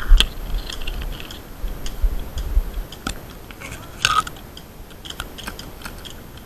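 Irregular crunching and crackling with scattered sharp clicks, and low thumps of the microphone being bumped, loudest near the start and again around two and four seconds in.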